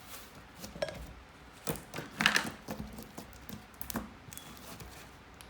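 Glitter slime being squished and stretched by hand, giving a scattered run of sharp clicks and pops as air pockets burst, the loudest cluster a little past two seconds in.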